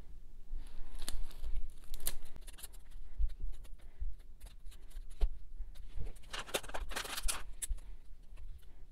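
Iron-on vinyl pieces on their clear plastic carrier being picked up and pressed by hand onto sweatshirt fabric: scattered small clicks and rustles, with a denser crinkling of the plastic about six seconds in that lasts over a second.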